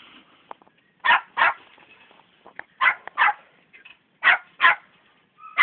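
Young podenco puppies barking: three quick double barks, short and high-pitched.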